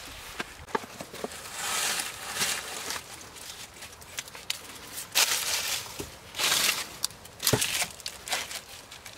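Irregular rustling and crunching, several times, broken by scattered sharp clicks and knocks, the loudest knock near the end.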